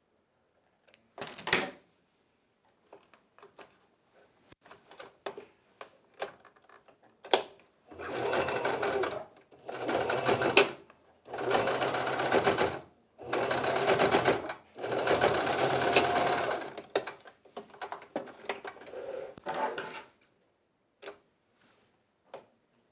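Electric sewing machine stitching in several short runs of a second or two each, with brief stops between them, sewing down the pleats of a cotton face mask. Near the start a pair of scissors snips a thread once, and light handling clicks follow the stitching.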